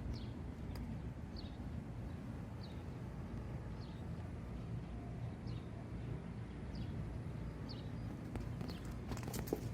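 A bird repeating a short, high, falling chirp about once every second or so over a low steady outdoor rumble, with a few clicks near the end.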